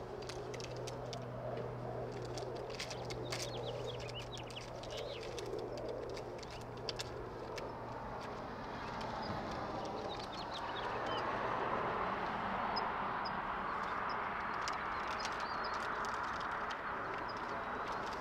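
Distant engine noise: a low hum that swells into a louder broad rumble about ten seconds in, as of something passing. Short high bird chirps come and go over it, mostly in the first half.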